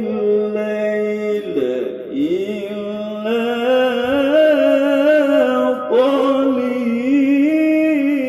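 Male qari reciting the Qur'an in melodic tilawah style, one voice drawing out long, wavering ornamented notes. A new phrase starts about six seconds in.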